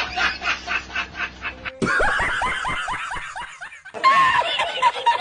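Laughter in quick repeated snickering pulses. The sound changes abruptly twice, about two seconds in and near four seconds, each time to a different laugh, the middle one in falling-pitch bursts.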